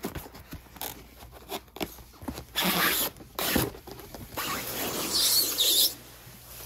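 Cardboard box flap opened and a white foam packing insert slid out of the box. Small clicks and taps of handling come first, then two stretches of rasping, scraping noise as the foam rubs along the cardboard, about two and a half seconds in and again from about four and a half seconds.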